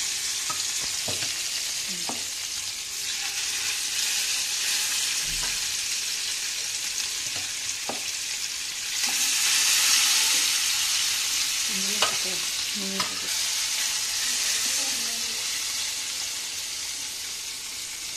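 Fish steaks rubbed with turmeric and salt, shallow-frying in hot oil in a frying pan: a steady sizzle that swells louder about nine seconds in. A few light clicks and taps of a spatula are heard.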